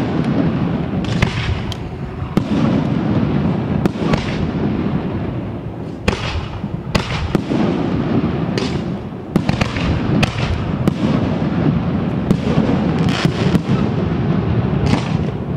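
Aerial firework shells bursting in quick succession: sharp bangs about once a second over a continuous rumble and crackle from the display.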